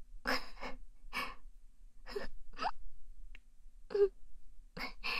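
A woman's short, breathy gasps and sighing breaths close to the microphone, about eight in a row, a few with a little voice in them.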